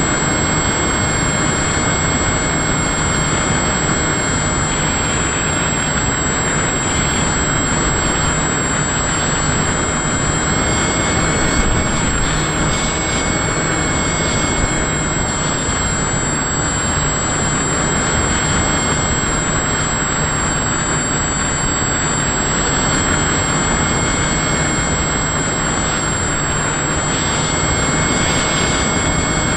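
Small electric RC aircraft in flight, heard from a camera mounted on the model: a steady motor-and-propeller whine under heavy wind rush, with thin constant high tones.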